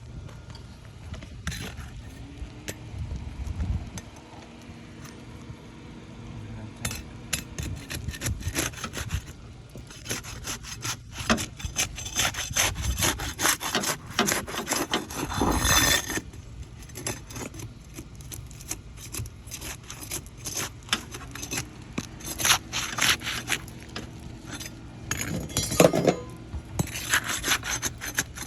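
Asphalt shingles being pried up and scraped with a flat bar: irregular rasping and scraping strokes with sharp clicks as the sealed tabs tear loose and delaminate around the nails. The scraping is heaviest in the middle stretch and again near the end.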